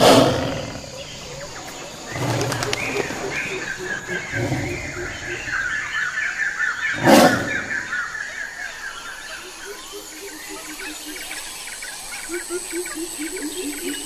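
A lion feeding on raw meat, with low growls about two and four seconds in and two sharp cracks, the loudest sounds, at the start and about seven seconds in. Birds chirp in quick runs through the middle, and a low pulsing sound repeats near the end.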